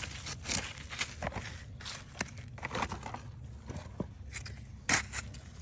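Irregular scraping and crunching of dry, crumbly soil and clods as hands dig through the dirt for potatoes, with a sharper crunch near the end.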